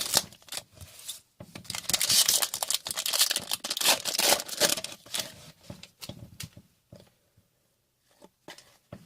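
Foil wrapper of a trading card pack being torn open and crinkled, a dense rustling tear lasting a few seconds, followed by a few light handling clicks as the cards come out.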